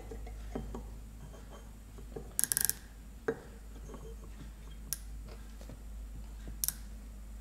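Small metal clicks from an outside micrometer being closed on hardened steel parallel bars to measure them. A quick run of sharp clicks comes about two and a half seconds in, then single clicks every second or two, over a low steady hum.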